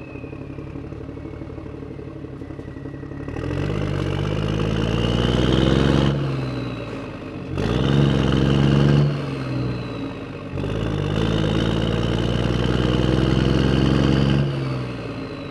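An engine running and revving up three times, its pitch climbing over a few seconds and then falling back to a lower running note.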